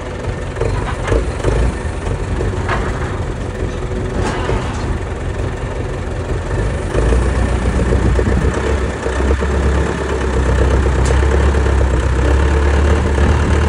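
Forklift engine running steadily, then revving up and working harder about seven seconds in as it pushes a heavy load. A few short metal knocks sound over it.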